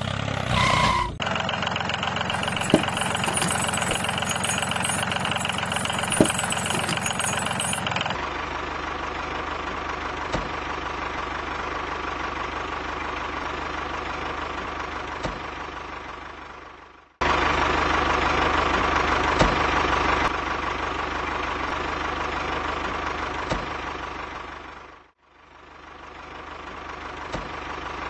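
Tractor engine running steadily at a low idle-like chug; the sound changes character about a second in and eight seconds in, and fades away and starts again about 17 and 25 seconds in.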